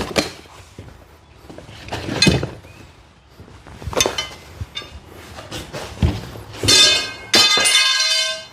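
Gear being handled and set down: a few separate knocks and thunks, then near the end about a second and a half of metallic ringing, twice in a row.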